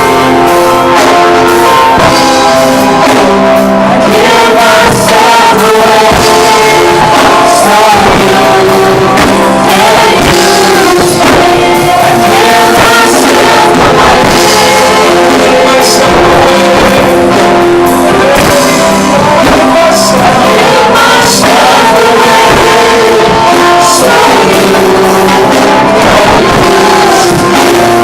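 Loud music with singing, over a band with guitar.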